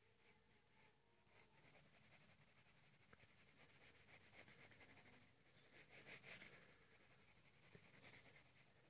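Faint scratching of a graphite pencil on paper in rapid short strokes, shading the lines of a drawing. It grows a little louder about six seconds in.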